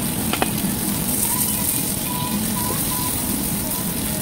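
Beef slices sizzling on a hot grilling stone over a steady background hum, with one sharp click about half a second in.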